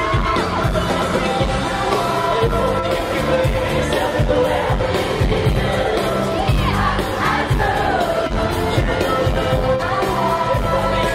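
Live pop concert audio: singers performing over backing music, with the noise of a crowd.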